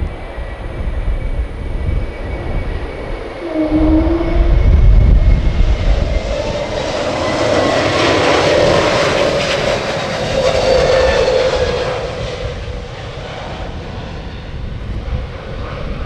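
Airbus A321neo's Pratt & Whitney geared turbofan engines at go-around thrust as the airliner aborts its landing and climbs away overhead. The engine noise builds to a loud peak midway, then fades near the end, with wind rumbling on the microphone throughout.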